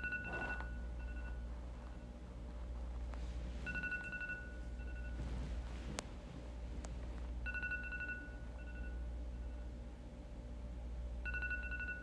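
iPhone Clock alarm ringing: a high beep followed by two or three fainter, shorter echoes of it, the pattern repeating about every four seconds, over a steady low hum.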